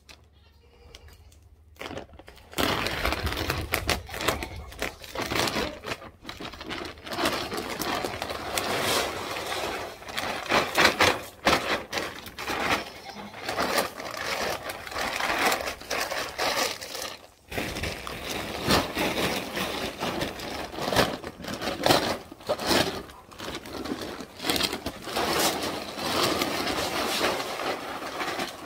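Livestock feed being poured from a plastic feed bag into a bin, with the bag rustling and crinkling as it is handled and shaken empty. It starts suddenly about two and a half seconds in and carries many sharp rattles and clicks.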